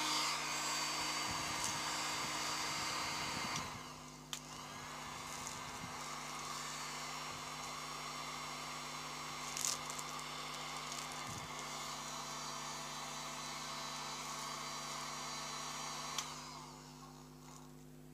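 Electric heat gun, just repaired with its broken heating-element wire rejoined, running and blowing hot air. It works again. The running noise drops somewhat about four seconds in, then stops with a click near the end and runs down.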